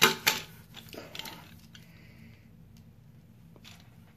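Plastic clacks and clicks of a Transformers Generations Sandstorm action figure being handled and repositioned. Two sharp clacks come at the start, followed by a few lighter clicks.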